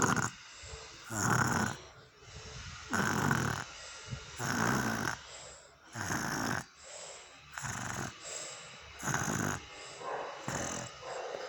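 A child snoring, with regular snores about every second and a half.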